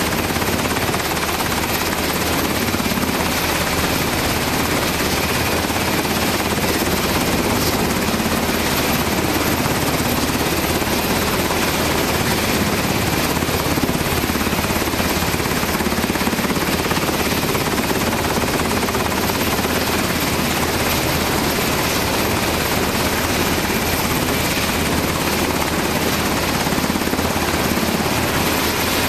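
Black Hawk helicopter running steadily on the deck just after landing.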